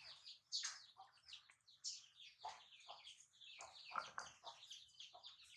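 Faint, high-pitched squeaks and chirps from a baby monkey, a string of short calls at roughly two a second.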